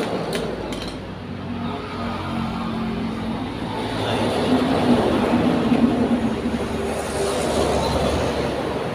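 Steady engine-like drone with a low hum, growing louder around the middle and easing off near the end.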